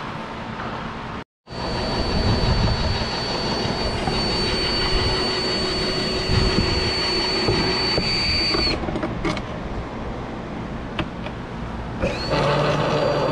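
An electric motor running with a steady high-pitched whine over a rushing noise. It stops about nine seconds in, then spins back up near the end.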